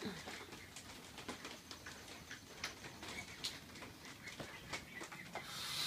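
Faint soft calls from a white domestic goose, with scattered light clicks.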